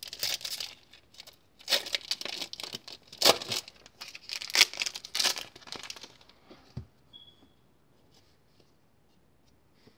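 Plastic wrapper of a Panini Score football card pack being torn open and crinkled by hand, in several loud rustling bursts over about six seconds.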